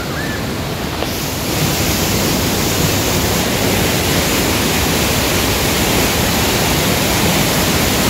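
Waterfall rapids: white water rushing and cascading over rocks in a steady, dense rush that grows louder about a second and a half in.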